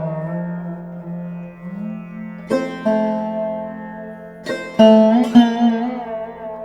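Background music on a plucked string instrument: notes struck sharply, a few at a time, each ringing and fading with bends in pitch.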